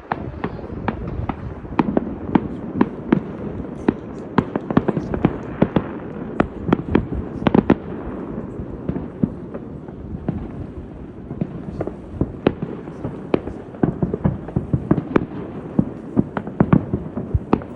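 Consumer fireworks set off by many people across a lake: a steady run of irregular bangs and pops, often several a second, over a continuous crackling rumble.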